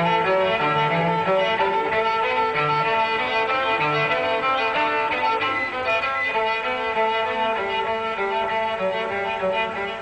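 Bowed string music: violin over lower cello notes, playing long held notes.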